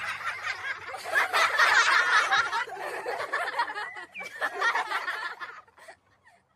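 A group of people laughing and chattering together, busy and overlapping, stopping abruptly just under six seconds in.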